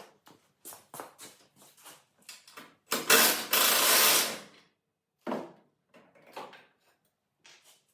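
Hand tools and loose metal parts clinking and knocking irregularly as the radiator mount bolts come out, with a louder scraping rush lasting about a second and a half about three seconds in.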